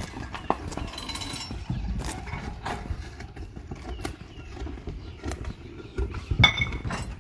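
A low engine rumble with many scattered knocks and clatter. A louder clatter with a short high squeal comes about six seconds in.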